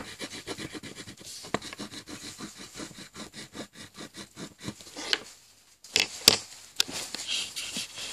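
Black marker pen scratching across lined paper in rapid short strokes as a word is written, stopping about five seconds in. A few sharp clicks follow about a second later.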